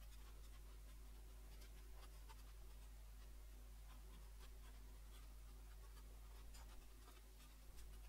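Faint scratching and squeaking of a felt-tip marker drawing lines on paper, over a low steady hum.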